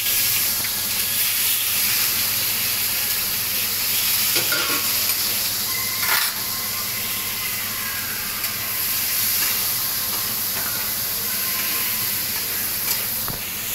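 Onions sizzling steadily as they fry in hot oil in a kadai, just added and being stirred with a spatula. The spatula knocks against the pan a few times.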